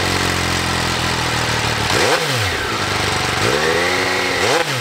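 MV Agusta Brutale 800RR's three-cylinder engine idling through its triple-outlet exhaust, then revved up and let back down twice: a short blip about two seconds in and a longer rev near the end.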